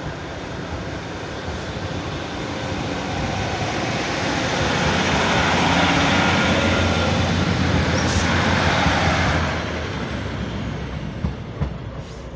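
Class 156 Sprinter diesel multiple unit 156401 pulling away under power and passing close by: diesel engine rumble and wheel-on-rail noise build to their loudest about six seconds in, then fade as the train leaves.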